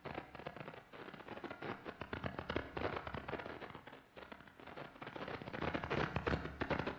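Jupiter's radio emission picked up by a radio telescope and played as sound: a radio storm driven by Jupiter's interaction with its moon Io, heard as dense crackling short bursts like popcorn popping or a handful of pebbles thrown onto a tin roof. The crackle swells and thins in waves.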